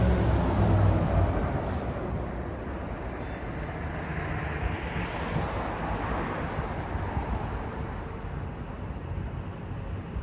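City street traffic: a vehicle's low rumble is loud at the start and fades over the first couple of seconds, leaving a steady traffic hum with another swell of passing-vehicle noise around the middle.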